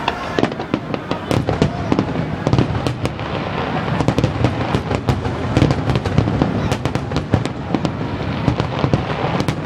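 Aerial fireworks going off in a dense barrage: many sharp pops and cracks a second over a continuous low rumble of shell bursts.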